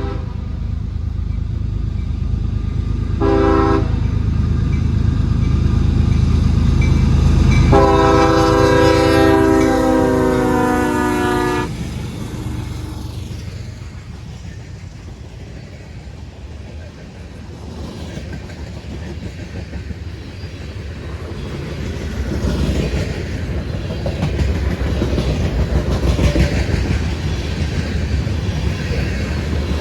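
CSX diesel freight locomotive blowing its horn for the grade crossing: a short blast about three seconds in, then a long one of about four seconds, over the heavy rumble of the diesel engine. The freight cars then clatter past over the rail joints, louder again near the end.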